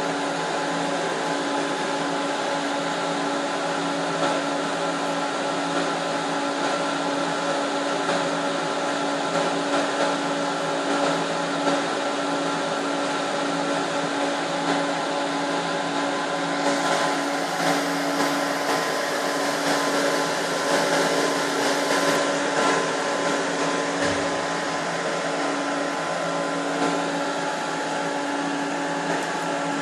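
Steady whir of the cooling fans in a running Screen Service 2.5 kW UHF TV transmitter, with several steady hum tones under the air noise. The rush turns brighter and hissier for a few seconds about midway.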